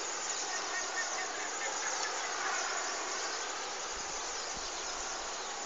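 Steady, even hiss of travel noise heard from inside a moving vehicle.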